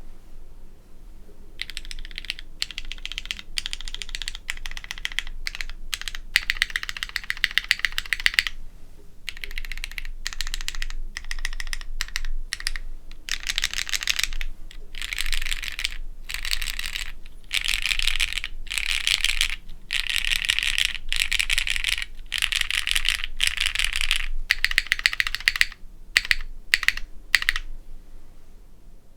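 Fast typing on a plateless 60% custom mechanical keyboard with broken-in, stem-lubed Cherry MX Black linear switches and GMK keycaps, in runs of keystrokes broken by short pauses. The typing begins a second or two in and stops shortly before the end.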